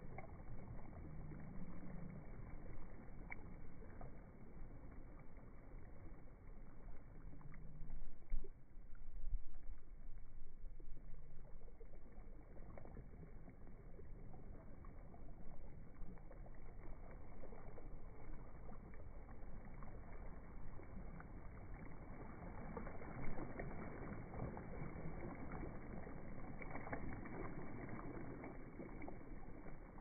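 Small waves lapping against rocks and washing over a pebble beach, swelling louder now and then.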